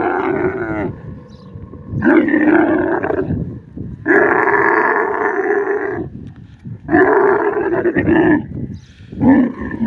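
Dromedary camel bellowing with its mouth wide open: a run of long calls, each one to two seconds, one after another with short breaks.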